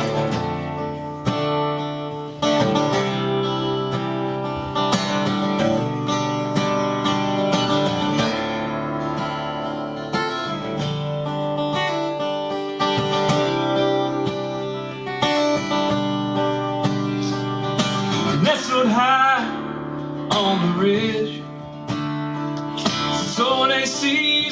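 Solo acoustic guitar tuned to drop D playing a song's instrumental intro, with chords ringing steadily. A wavering melodic line joins about three-quarters of the way through.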